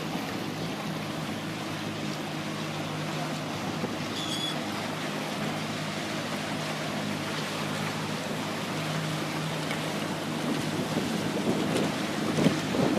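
Motorboat engine running steadily under way, with wind and water rushing past. A brief high chirp about four seconds in.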